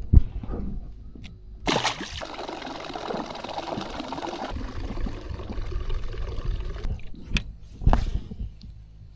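River water splashing and sloshing for about five seconds, starting suddenly a couple of seconds in, with a thump at the start and a couple of sharp knocks near the end.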